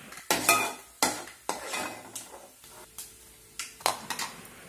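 Steel spoon clinking and scraping against a bowl as fried coconut pieces are scooped in, with about half a dozen sharp clinks spread over a few seconds.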